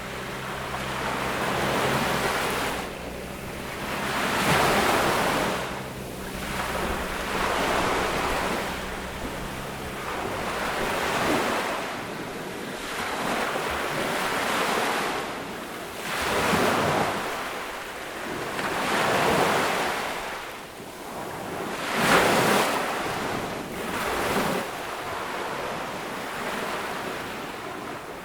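Small waves breaking on a beach one after another, each a swelling hiss of surf and wash that rises and falls every two to three seconds. One break about two-thirds of the way through is the loudest.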